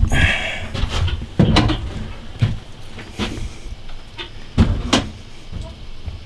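Handling noise from a camera being moved and repositioned: scattered knocks and bumps against wood, with a brief rustle at the start.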